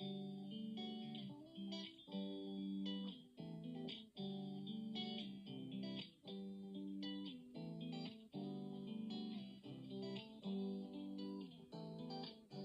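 Background music led by a plucked guitar, playing a steady rhythmic pattern of notes.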